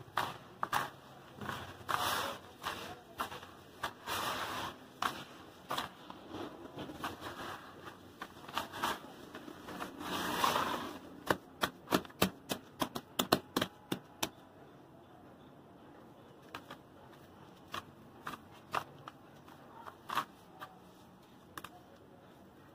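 Hands scooping, squeezing and raking crushed dry cement and gravel in a plastic tub: gritty crunching and rustling with sharp clicks of grains. It is busiest in the first half, ends in a quick run of clicks, and after about fourteen seconds thins to scattered clicks.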